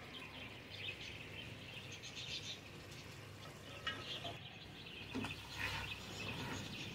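Beef curry sizzling and crackling as its thick masala fries in the separated oil in an aluminium pot, with a silicone spatula stirring and scraping the pot a few times about four to six seconds in.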